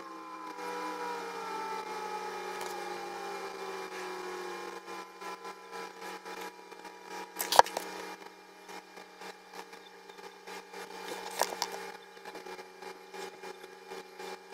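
Plastic stencils and a pen handled over a paper journal on a desk: light rustles and taps, with two sharper knocks about seven and a half and eleven and a half seconds in. Under it runs a steady hum, and through the first half a droning tone that slowly falls in pitch.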